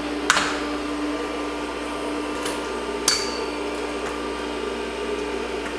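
IBM XT 5160 PC running with a steady hum from its power supply fan and hard drive. A floppy format steps the drive through its cylinders, giving a sharp click shortly after the start and another about three seconds in, with fainter ticks in between.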